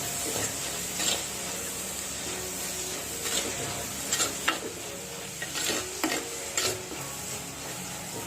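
Onions and crushed garlic sizzling in hot oil in a pan, stirred with a spatula that scrapes and clicks against the pan several times.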